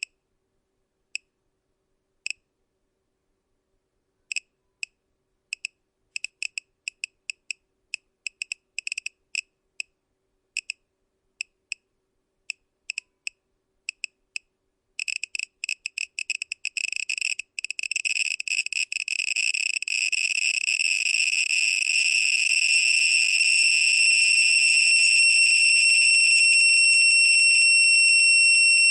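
Geiger counter clicking. Irregular clicks start a second or two apart and grow steadily faster, the sign of a rising radiation count. About halfway through they merge into a dense crackle and then a continuous high-pitched whine as the counter saturates.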